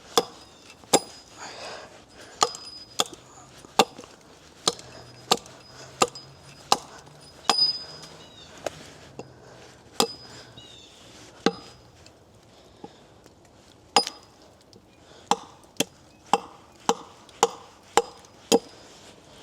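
An axe chopping into wood: a long run of sharp blows, one to two a second at an uneven pace, with a short pause about two thirds of the way through.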